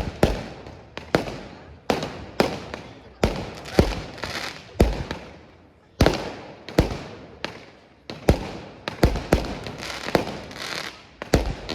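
Aerial fireworks exploding in quick succession, a sharp bang every half-second to second, each followed by crackling and echo that fades before the next.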